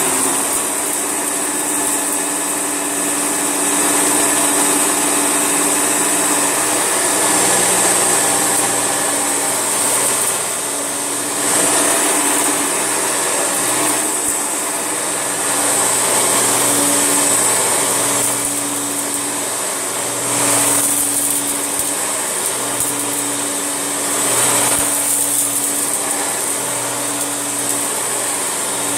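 Hoover Turbolite vacuum cleaner running continuously, a steady motor hum under a strong high-pitched whine, swelling briefly a few times while it picks up a mess of cereal, dog hair and grit.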